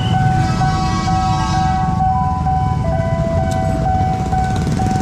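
Motorcycle and small-vehicle engines running at a railway level crossing, a steady low rumble, with held ringing tones over it that shift in pitch a few times.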